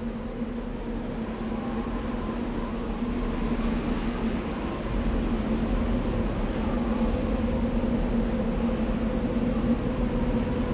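A steady, vehicle-like rumble with a constant low hum running through it, starting abruptly and growing somewhat louder over the first few seconds.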